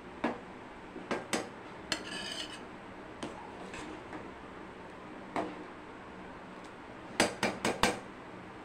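Steel perforated ladle clinking and scraping against a stainless steel pot while stirring a thick sambar: scattered single knocks, one ringing briefly about two seconds in, then a quick run of four or five knocks near the end.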